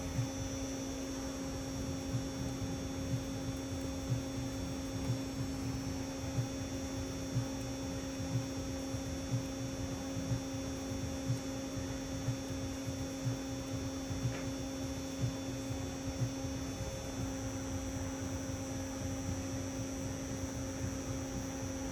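Steady humming tone from car-audio speakers and amplifier on a test bench, with soft low pulses about once a second, as a test signal plays for crossover calibration.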